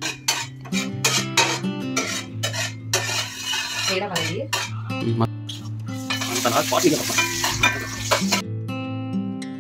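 Metal spatula scraping and clinking against an aluminium pan while whole spices sizzle in hot oil. The sizzling swells about three seconds in and again from about six to eight seconds. Soft guitar music plays underneath.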